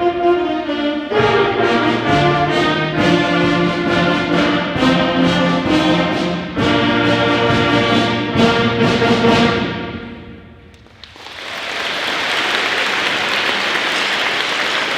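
A school concert band, its brass to the fore, plays the closing bars of a march and ends on a held chord that dies away about ten seconds in. An audience then breaks into steady applause.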